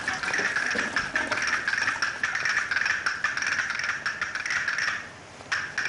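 Studio audience applauding, a dense steady clapping that dips briefly about five seconds in and then picks up again.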